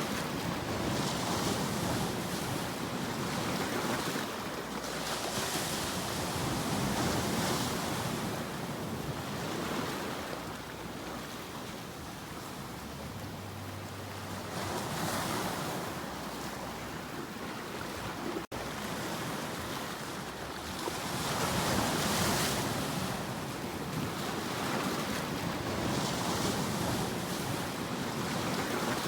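Sea waves breaking and washing ashore, the surf swelling and fading every few seconds. A split-second dropout about two-thirds through.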